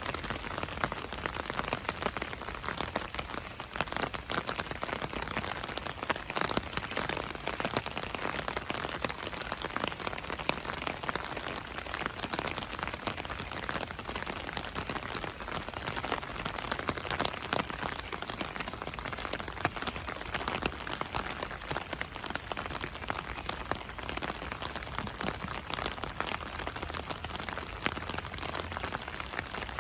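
Steady rain falling, a continuous hiss with many small drop ticks hitting surfaces.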